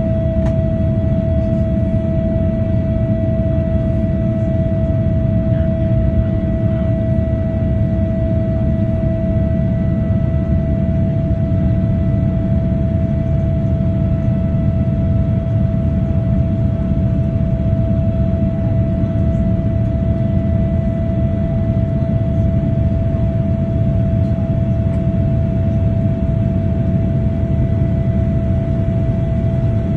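Boeing 787-9 cabin noise during climb after takeoff, heard from a window seat beside the wing: the GE GEnx-1B engines at climb thrust and the rushing air make a steady, dense rumble. A constant hum runs over the rumble.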